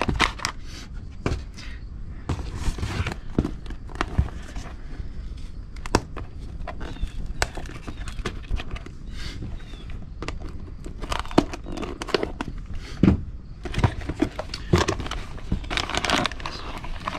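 Cardboard parts boxes and plastic-bagged chainsaw parts being handled: plastic crinkling and cardboard rustling with scattered light knocks and clicks.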